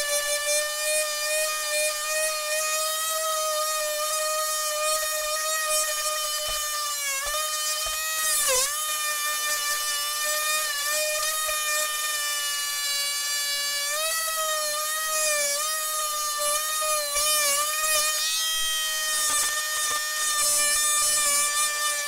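Oscillating multi-tool running continuously as its blade plunge-cuts an opening in wood siding: a steady high whine that sags in pitch when the blade bites, most deeply about eight or nine seconds in, and wavers again between about fourteen and eighteen seconds.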